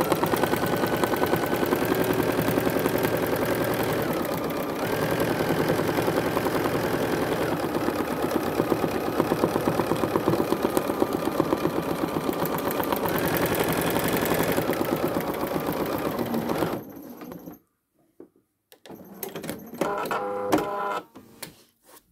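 Bernina sewing machine free-motion quilting at speed: a fast, steady chatter of needle strokes that eases slightly in pace now and then and stops about 17 seconds in. After a short pause the machine runs again briefly for about a second and a half.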